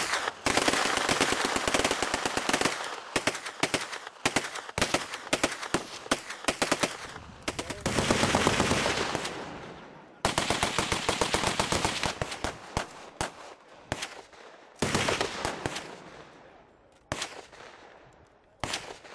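Machine guns firing on full automatic in long and short bursts, the shots coming in fast strings with echo trailing after each burst. The longest burst runs for about two seconds in the middle, and the firing thins to a few separate shots near the end.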